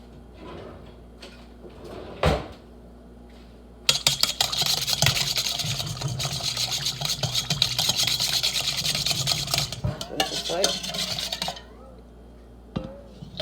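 Whisk beating an oil-and-vinegar dressing in a bowl: one knock about two seconds in, then rapid, continuous clattering of the whisk against the bowl for about seven and a half seconds, which stops suddenly.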